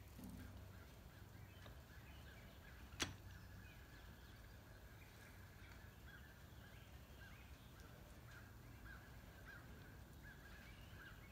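Homemade plywood wheel with wooden lever arms and small wheels turning slowly, mostly quiet, with one sharp knock about three seconds in. Faint short chirps repeat in the background in the second half.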